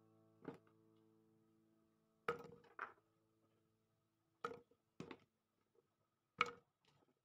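Whole spice ingredients, such as garlic cloves and shallots, dropped one at a time into a clear plastic container, each landing with a sharp knock, about six in all. A soft guitar-and-piano tune fades out in the first two seconds.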